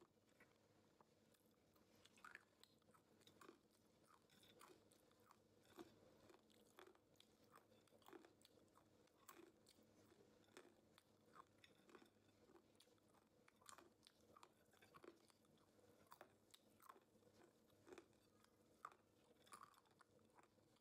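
A person chewing crispy fried green peas: a faint, irregular run of crisp crunches, about one or two a second.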